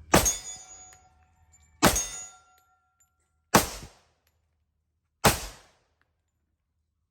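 Four gunshots from an FNX-45 Tactical .45 ACP pistol, fired at a steady pace about 1.7 seconds apart, with a brief metallic ring after the first two.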